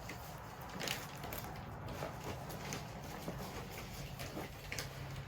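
Faint scattered rustles and light taps as an item is handled and unpacked.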